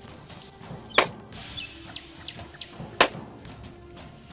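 Two loud, sharp bangs, about a second in and about three seconds in, with faint bird chirps between them.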